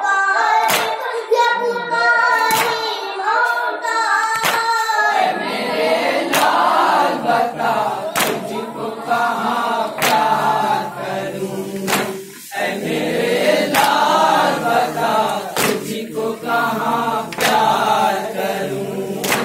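A group of men chanting a Muharram lament (nauha) in unison, with more, lower voices joining about five seconds in. Sharp hand strikes land together about every two seconds, the beat of matam chest-beating.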